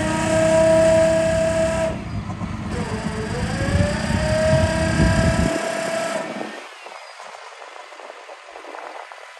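6.7L Cummins diesel engine of a Freightliner M2 digger derrick truck running under load, with a high whine from the derrick's hydraulic pump that rises in pitch, dips about two seconds in, rises again and holds. The rumble and whine die away about six seconds in, leaving a much quieter background.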